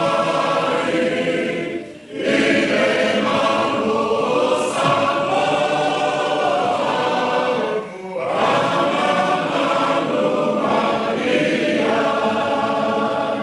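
A choir of many voices singing together, with short pauses for breath about two and eight seconds in.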